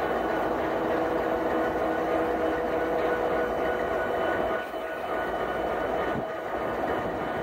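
Norfolk Southern EMD SD70ACe diesel-electric locomotive idling while tied down: a steady hum with several held tones, dipping briefly about four and a half seconds in.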